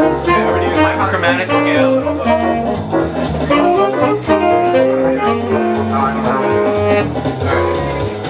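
Small jazz group playing live: a quick melodic line of rapidly changing notes over a moving bass part.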